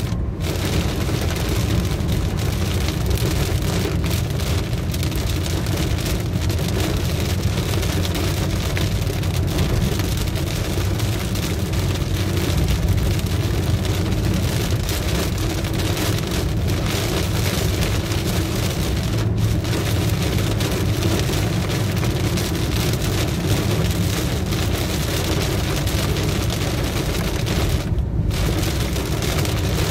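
Rain falling on the roof and windscreen of a moving car, heard from inside the cabin, over the steady low rumble of the car on a wet road.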